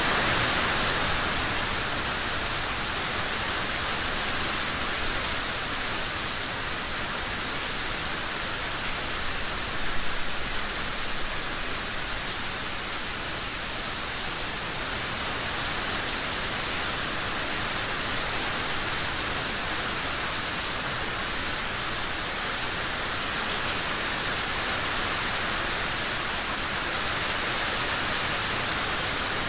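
Steady rain falling, an even hiss of drops, with a brief louder swell about ten seconds in.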